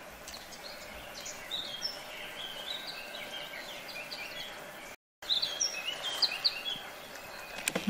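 Birds singing and chirping over a faint outdoor hiss, with a short break in the sound about five seconds in.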